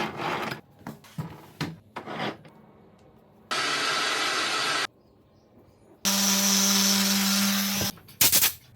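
Woodworking shop sounds: a run of short rubbing or sawing strokes on wood, then two separate runs of a power tool, each starting and stopping abruptly, the second with a steady motor hum under it. A couple of sharp knocks come near the end.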